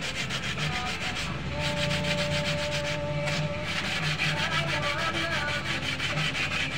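Sandpaper on a sanding pad rubbed quickly back and forth over a scooter's plastic body panel, about five scraping strokes a second. The panel is being sanded down over scratches and cracks before repainting.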